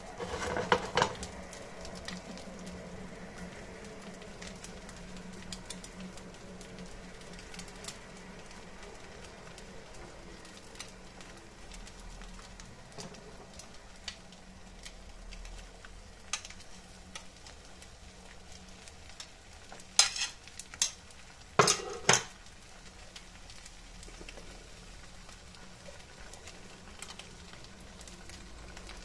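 Eggs frying in a pan, a steady faint sizzle with a low hum under it. Dishes clatter about a second in, and a spoon knocks against a plate several times about two-thirds of the way through, the loudest sounds.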